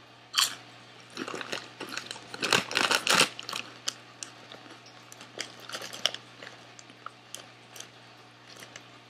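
Baked potato chip (Lay's Baked barbecue) bitten with one sharp crunch about half a second in, then chewed in a quick run of crunches for about three seconds, easing off into fainter, scattered clicks.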